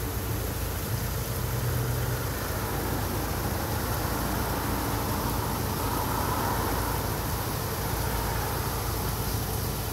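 Rollover car wash gantry running empty, with a steady mechanical hum and rumble and a hiss over it.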